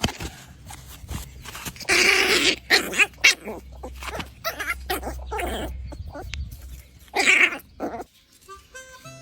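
A puppy vocalizing in several short, harsh outbursts, the loudest about two seconds in and another near the end. Harmonica music begins just before the end.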